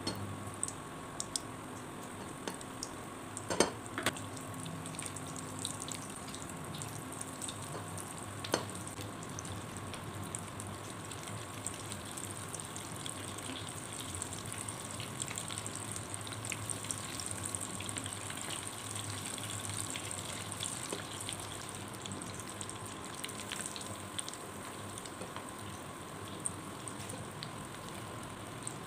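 Breaded mashed-potato pieces deep-frying in hot oil in a stainless steel saucepan: a steady sizzle with small crackles throughout. A few sharp knocks stand out, the loudest about three and a half seconds in and another near eight and a half seconds.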